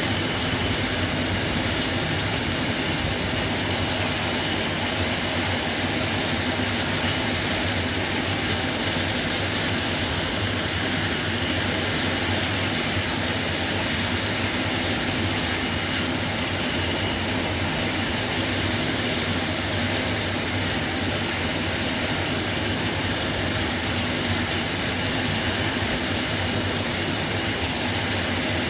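Airbus C-295M's twin turboprop engines running steadily, a high whine over a constant drone.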